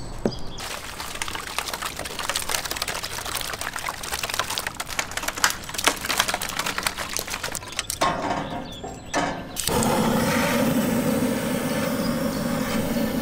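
A cat crunching and chewing a raw fish, with many quick, irregular crunches. About ten seconds in, a handheld gas torch on a butane canister is lit and held on the firewood, and it gives a steady roar.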